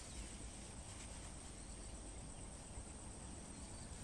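Faint steady insect chorus, crickets, with a continuous high-pitched whine.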